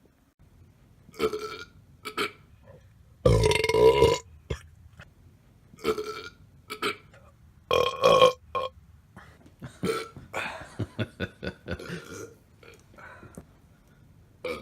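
Loud human burps in a series of separate belches. The longest and loudest comes about three to four seconds in, another strong one about eight seconds in, and a quick run of short burps follows from about ten to twelve seconds.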